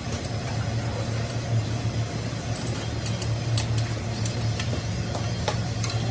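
Six-cylinder truck diesel engine running steadily at idle, with a few light clicks over the hum.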